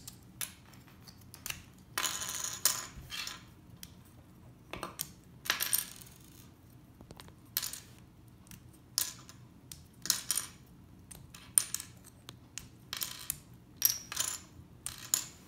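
Small plastic LEGO pieces clicking as they are pulled apart and clattering as they are set down on a wooden surface: irregular, scattered clicks, a few of them sharper with a brief ring.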